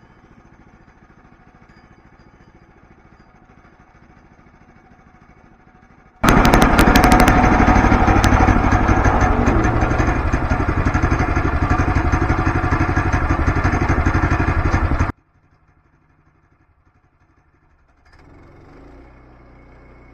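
Gasoline engine of a portable band sawmill running loud under load as the blade saws through an oak log. It comes in suddenly about six seconds in and cuts off abruptly about nine seconds later, with a faint engine hum before it and a moderate hum again near the end.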